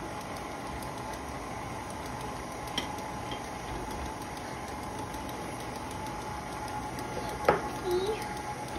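KitchenAid tilt-head stand mixer running steadily, its beater turning through creamed butter, sugar and egg batter in the steel bowl: a constant motor hum with a steady whine. A light knock or two sounds over it.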